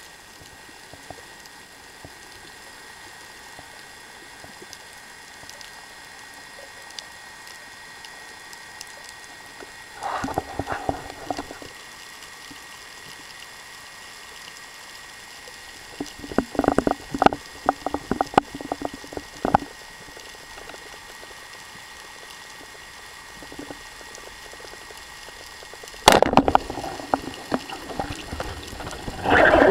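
Underwater sound picked up through a camera housing: a steady faint hiss with a thin steady whine, broken by short clusters of crackling and clicking. About 26 seconds in comes one loud sharp crack as the band-powered speargun fires, followed by rattling and clatter.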